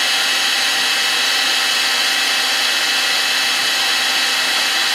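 Electric heat gun (paint stripper gun) running: a steady rush of blown air with a faint constant motor hum underneath.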